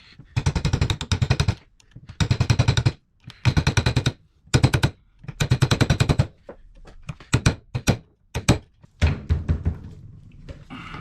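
Rapid-fire metal hammering on the staked lock plate of a Porsche 911 steering rack: five short bursts of fast repeated strikes, then a few single knocks, as the stakes are knocked free.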